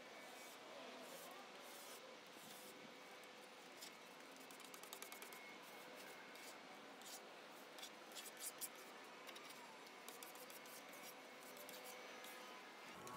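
Faint scraping and crinkling as paint stripper is squeezed from a plastic bag and spread over a teak table leaf with a plastic spreader, to strip the old varnish. There is a cluster of small clicks and rustles in the middle.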